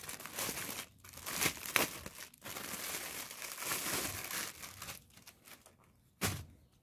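Thin clear plastic wrapper crinkling and tearing as it is pulled open and off a bundle of plastic bags by hand. The rustle dies down about five seconds in, with one short sharp crinkle near the end.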